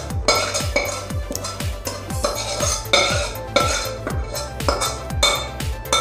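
Metal utensil scraping and clinking against a kadhai as fried tempering is pushed out into a bowl of minced chicken, over background music with a steady beat of about two thumps a second.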